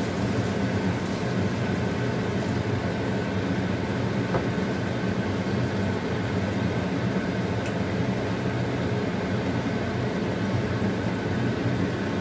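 A steady low mechanical hum with a hiss over it, unchanging throughout, and one faint tick about four seconds in.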